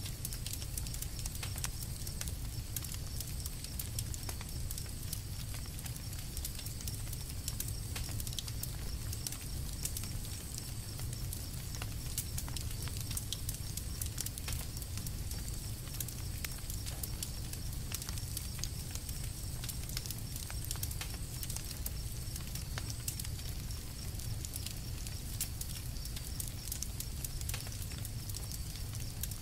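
Campfire crackling: frequent small irregular pops and snaps over a steady low rumble of the burning fire.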